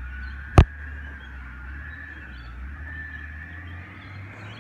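Distant Dennis Eagle garbage truck's diesel engine running down the street, a steady low rumble, with a faint wavering high tone above it. A single sharp click about half a second in.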